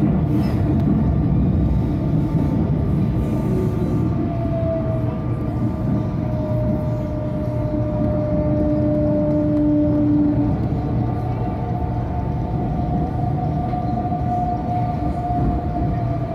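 Inside a CNR-built Rio Metro Line 2 train running at speed: steady rumble of wheels on the rails. Over it, a thin electric whine from the drive drifts slowly down in pitch, then rises again.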